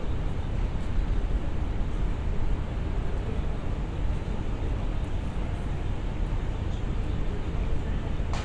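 Steady city street background noise, dominated by a low rumble, with no single event standing out.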